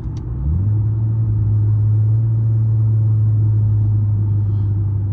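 Car engine and exhaust, fitted with a second resonator to cut drone and rasp. The revs jump up sharply about half a second in, then hold a steady, deep, even tone under acceleration.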